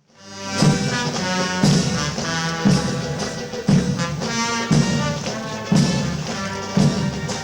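Brass band playing a march, with brass chords over a strong drum beat about once a second. It starts abruptly right after a brief gap.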